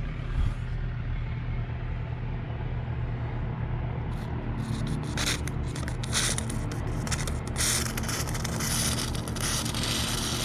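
Aerosol can of white lithium grease spraying through a straw nozzle in short sputtering, popping bursts, because the nozzle is pressed only lightly. The bursts start about halfway in and come thicker near the end, over a steady low hum.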